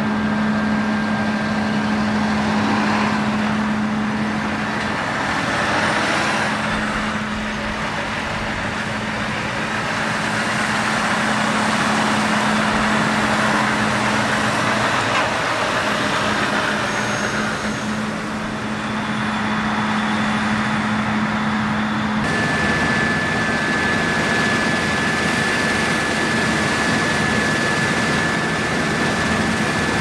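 Diesel engines of a Volvo FMX tipper truck and a Claas Lexion 8800 combine harvester running steadily as the truck drives over the stubble. About two-thirds of the way through the sound changes suddenly to the combine working close by as it cuts wheat, with a steady high whine over the engine.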